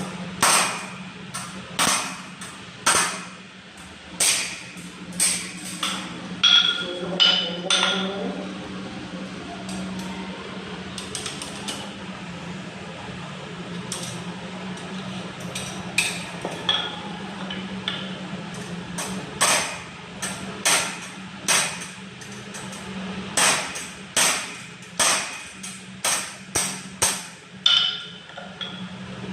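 Hammer blows on the steel wire of a mesh cable tray, curving its bend: sharp metallic strikes in irregular groups, some with a short ring, and a few pauses between. A steady low hum runs underneath.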